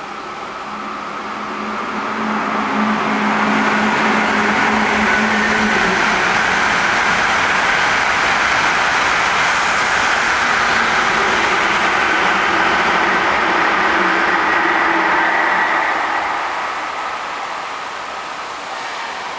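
E5 series Shinkansen train passing through the station at speed without stopping. A rush of wheel, rail and air noise, with a few steady tones in it, builds over the first few seconds, holds steady for about twelve seconds, then dies away near the end.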